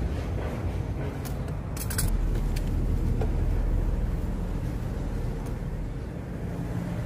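A low, steady engine drone, louder from about two seconds in to past the middle, with a few short sharp clicks in the first half.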